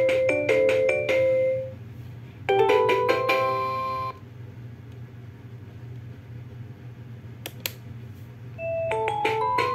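Preloaded ringtones playing from a Huawei ETS3125i phone. One melody of quick electronic notes ends about two seconds in, then a short rising chime ending on a held chord. After a pause with a steady low hum and a couple of clicks, a new tune starts near the end.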